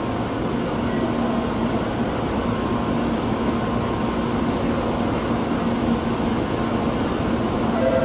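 Tokaido Shinkansen train standing at the platform, its onboard equipment giving an even, steady hum with a faint steady tone running through it.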